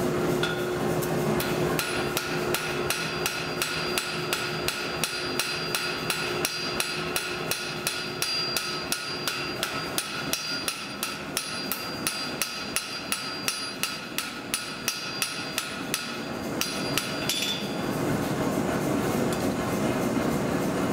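Hand hammer striking a steel bar on a steel anvil, two to three ringing blows a second for about fifteen seconds. A steady machine rumble runs under the start and resumes after the hammering stops.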